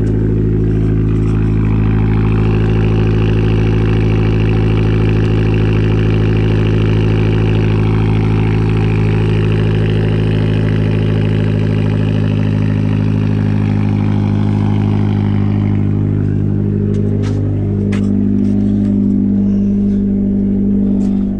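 2012 Fiat 500 Abarth's 1.4-litre turbocharged four-cylinder engine idling smoothly at a steady speed, running without a misfire now that a cloned ECU is fitted. A higher hiss over the engine drops away about sixteen seconds in.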